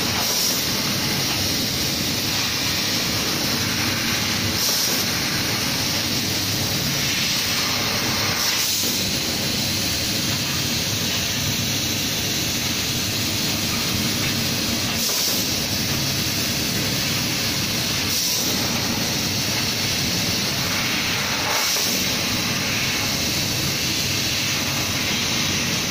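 CNC laser cutter cutting sheet metal: a steady loud hiss of the assist-gas jet and machine running, with a brief change in the hiss every few seconds as the head finishes one cut and starts the next.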